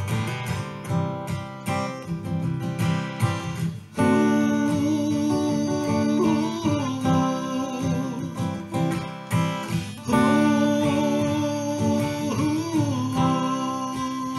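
Cutaway acoustic guitar strummed in a steady pattern, an instrumental break in a folk song. From about four seconds in, and again about six seconds later, a long held melody note sounds over the guitar and bends in pitch near its end.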